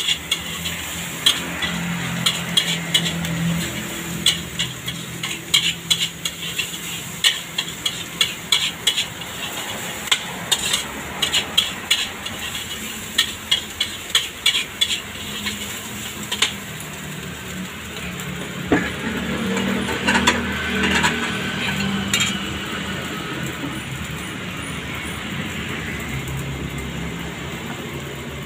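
Metal spatula clanking and scraping against a steel wok as fried rice is stir-fried over a steady sizzle. The rapid, irregular clanks stop about two-thirds of the way in, followed by a few scattered knocks and clinks, then only the steady hiss.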